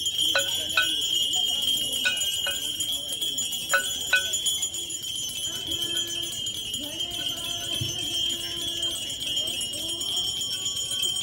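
Aarti hand bells ringing without a break in a high, steady jingle, with three pairs of sharp struck-metal strokes in the first four seconds.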